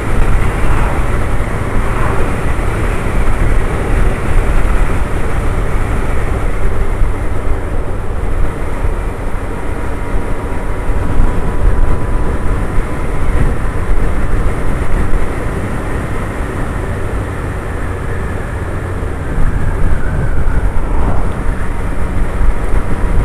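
Suzuki Hayabusa's inline-four engine running steadily at a cruise, under wind and road noise from riding. The engine is running smoothly. It eases slightly about two-thirds of the way through, then picks up again near the end.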